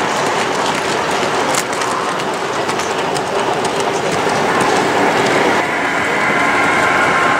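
A 1:32-scale (Gauge 1) model freight train's metal wagon wheels rolling along the track, clicking over rail joints as the long string of open wagons passes. About five and a half seconds in, the sound changes abruptly to a steadier hum with faint held tones.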